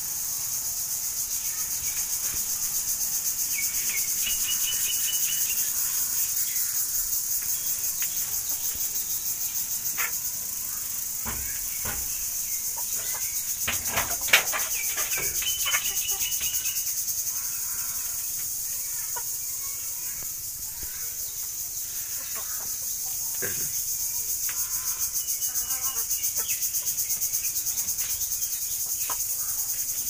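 A steady high chorus of insects trilling with a fast pulse, over which chickens call now and then with a few held calls. A handful of sharp clicks come in the middle.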